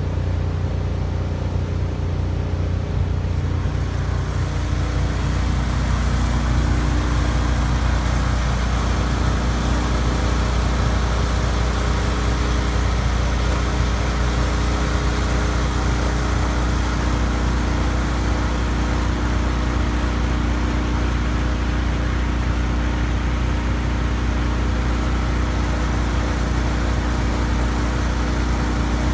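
Engine of a pressure washer rig running steadily: a strong low hum with a steady hiss above it, unchanging throughout.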